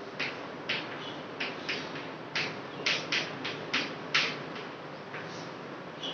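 Chalk writing on a chalkboard: about a dozen short scratches and taps as letters are formed, irregularly spaced with a brief pause near the end, over a steady hiss.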